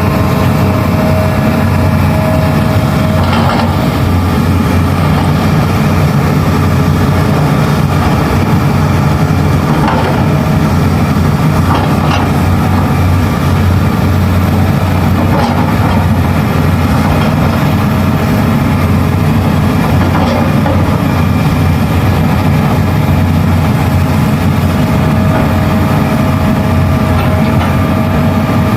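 Large Hitachi hydraulic excavator's diesel engine running steadily under work, with a few faint knocks spread through.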